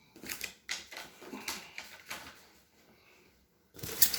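Packaging being handled during an unboxing: a few light clicks and taps, a short pause, then near the end a sudden loud crinkling rustle of wrapping.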